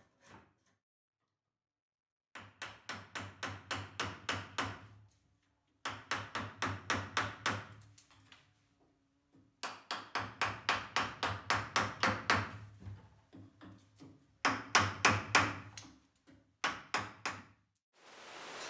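Mallet striking a chisel to pare bark off a tree branch: runs of quick, even taps, about four to five a second, in several bursts with short pauses between. A steady hiss fades in near the end.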